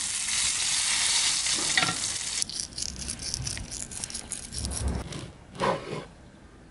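Breaded plaice fillets frying in a pan of oil and butter: a dense, steady sizzle that cuts off about two and a half seconds in, leaving sparser crackling that fades away. A few dull knocks come near the end.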